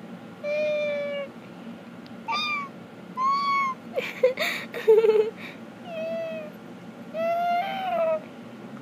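A series of meows, about six, each under a second and gliding in pitch. A louder, rougher, wavering call comes about five seconds in.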